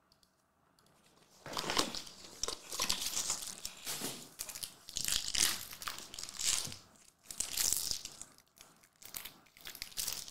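Foil wrapper of a Panini Prizm basketball card pack crinkling and tearing in irregular bursts as it is ripped open by hand, starting after a second or so of quiet.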